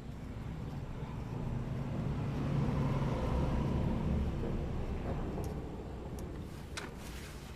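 A passing road vehicle, its low rumble swelling to a peak a few seconds in and then fading away, with a few light clicks near the end.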